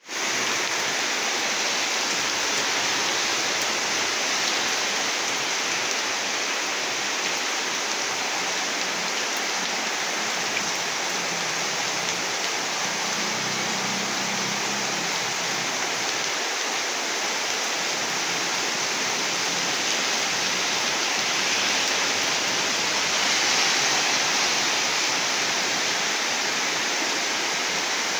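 Heavy rain pouring steadily onto a street and trees: a dense, even hiss that swells slightly near the end.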